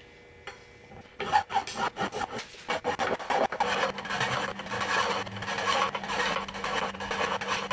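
Hand file rasping across the corner of a bare aluminium hydraulic hand-pump body clamped in a vise, in quick back-and-forth strokes that start about a second in. The sharp corner is being rounded off so the pump's bolt holes line up.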